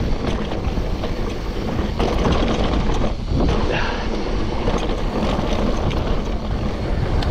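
Mountain bike rolling fast down a dirt trail: wind rushing over the microphone, with tyre noise and many short rattles and knocks from the bike over the rough ground.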